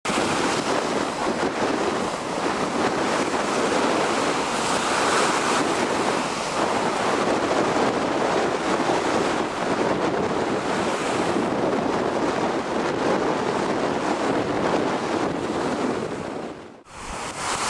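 Strong wind and breaking surf: a steady, loud rushing noise, with wind buffeting the microphone. It drops out briefly near the end.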